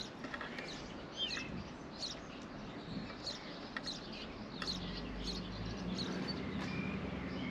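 Scattered short bird chirps. A low steady hum comes in about halfway through.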